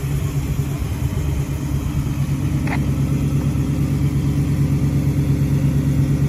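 1978 Chevrolet Monte Carlo's new 305 small-block V8 idling steadily through a dual Flowmaster two-chamber exhaust: an even, low, pulsing rumble.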